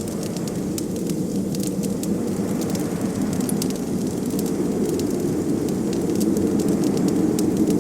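Wood fire crackling, with many small, sharp, irregular pops over a steady low rush of blizzard wind.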